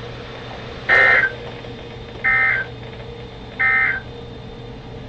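Emergency Alert System digital data bursts, the end-of-message code: three short, loud, buzzy tone bursts about a second and a half apart over a steady low hum from the weather radio receiver. They mark the close of the tornado warning message.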